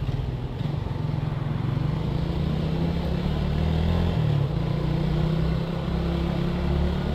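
Motorcycle engine running steadily while riding along a street, its low note shifting about four seconds in.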